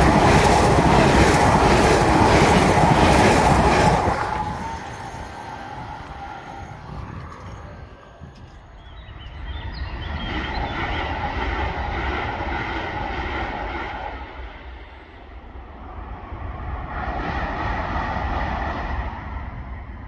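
Öresundståg electric passenger train passing close by at speed: a loud rush of wheels on rail that runs about four seconds and then dies away. Later come two fainter swells of passing-train noise from farther off.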